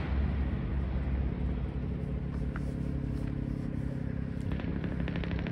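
Vehicle engine running at a low, steady rumble. Near the end, a rapid, even pulsing exhaust note begins to build.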